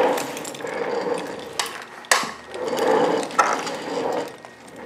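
Plastic watch band and case being pushed and worked together by hand: swelling rubbing and scraping sounds with about four sharp clicks.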